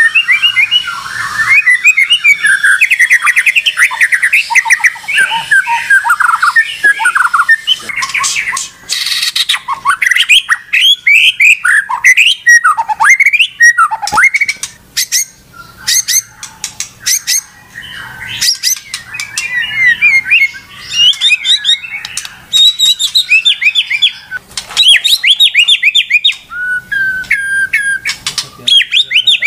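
White-rumped shama (murai batu) singing loudly and without letup: fast, varied phrases of whistles, trills and sharp chattering notes, broken by short pauses.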